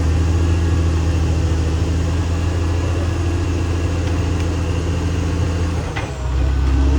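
Caterpillar D6R XL bulldozer's diesel engine running steadily with a deep hum. About six seconds in there is a sharp click and the engine note drops lower.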